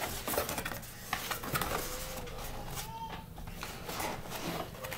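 Cardboard packaging being handled and opened: a box sleeve sliding off and paperboard flaps folding back, with scattered small scrapes and taps.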